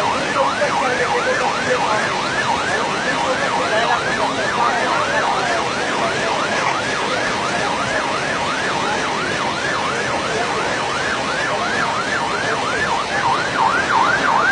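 An emergency vehicle siren in rapid yelp mode, sweeping up and down about three times a second, over the steady rush of floodwater.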